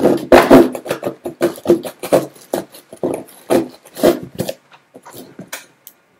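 Kitchen knife sawing through packing tape and cardboard on a shipping box: a run of rasping back-and-forth strokes, about two to three a second, that thin out to lighter scratches after about four and a half seconds.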